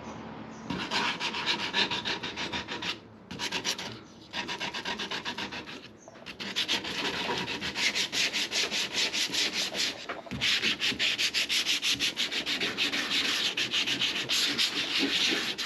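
Hand sanding with sandpaper: quick back-and-forth rasping strokes in several bouts, with short pauses between them.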